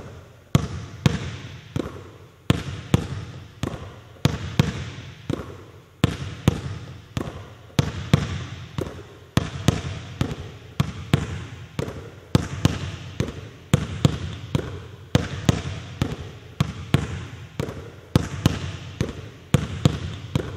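A basketball being dribbled hard on a hardwood gym floor in low, quick kill crossovers from hand to hand, about two bounces a second, each bounce echoing briefly.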